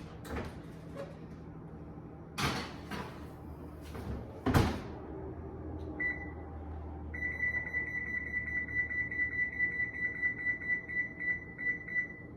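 Two knocks as the muffin pan goes into the oven and the oven door shuts, then a high electronic beep from the oven's control panel, short at first, then sounding in rapid pulses for about five seconds while the 22-minute timer is set.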